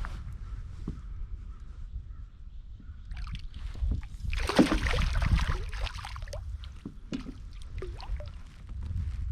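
Water sloshing and lapping against an Old Town kayak's hull, with scattered small knocks, and a louder splashing rush about four and a half seconds in.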